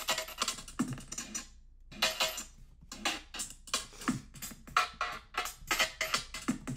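A looped music sample played through Max MSP's groove~ object, its playback switched on and off by a square-wave phasor~ so it stutters in short chopped bursts. There is a brief gap about one and a half seconds in, and the chopping then settles into a slower, even rhythm.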